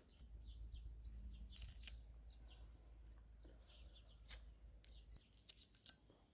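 Faint small birds chirping in short, repeated high calls, with a few sharp clicks of handling between them and a low rumble that stops about five seconds in.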